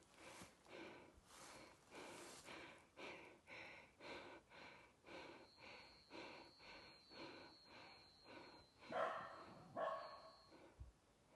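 Footsteps at an even walking pace, about two steps a second, with faint breathing. A thin high steady tone sounds through the middle, and two louder rough, breathy sounds come near the end.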